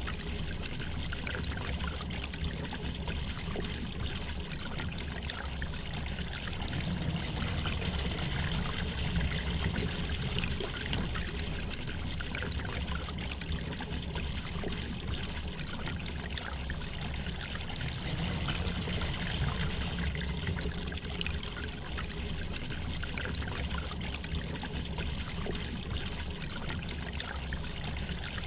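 A river flowing gently: a steady rush of water with small trickling splashes and a low, even rumble underneath.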